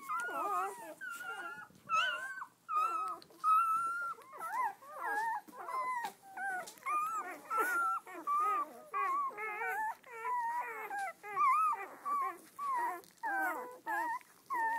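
A litter of newborn Doberman pinscher puppies whimpering and squealing: many short, high, wavering cries overlapping, several a second, without a break.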